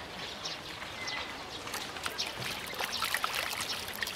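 Common carp splashing and thrashing in shallow water at the pond's edge while spawning: a run of small, irregular splashes and sloshing that gets busier about halfway through.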